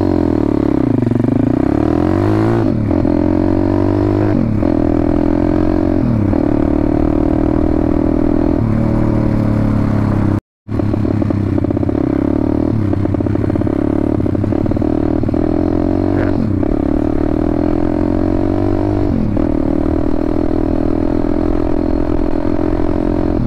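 WPB Beast 190 pit bike's 190cc single-cylinder four-stroke engine running under way. The revs dip briefly and climb back about seven times, as the rider eases the throttle and shifts gear. The sound cuts out for a moment about ten and a half seconds in.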